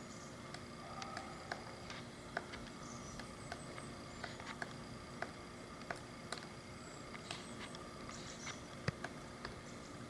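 Pileated woodpecker's bill striking wood as it forages: irregular sharp taps, about two a second, one louder near the end.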